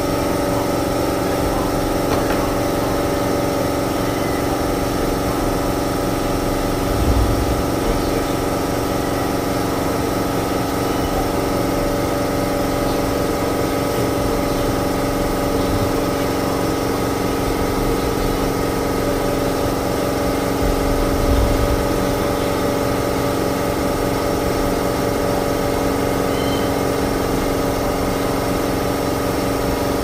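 A steady mechanical hum of a running motor, even throughout, with two brief low thumps about seven and twenty-one seconds in.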